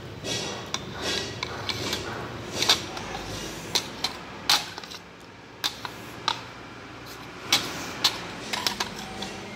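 Metal spoon clinking and scraping against a ceramic bowl, about a dozen sharp clicks from a few seconds in. Before the clicks come a couple of seconds of quick, hissing breaths through an open mouth, from the burn of very spicy food.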